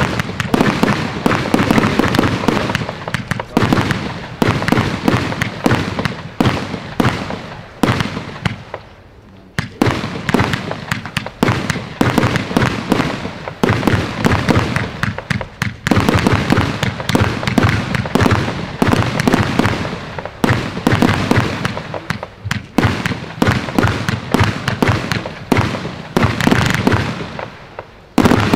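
Funke Skala 100A fireworks battery firing: a rapid, continuous stream of launch thumps and bursting shells, with a few short lulls.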